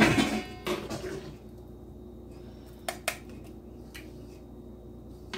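Metal slotted spoon scraping and knocking against a Lodge cast iron pie pan while scooping apple crumble into a bowl: a loud scrape and clatter at the start, a smaller one just after, then a few light clicks of utensil on dish.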